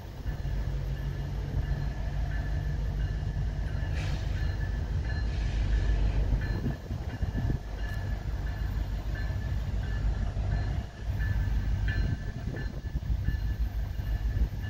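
Diesel locomotives of a CPKC freight train running slowly as they approach, a steady low engine rumble.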